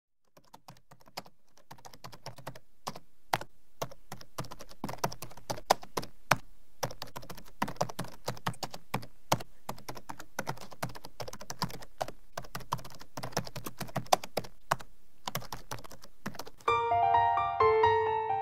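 Computer keyboard typing: quick, irregular key clicks that fade in over the first couple of seconds. About sixteen and a half seconds in, the typing stops and light piano music begins.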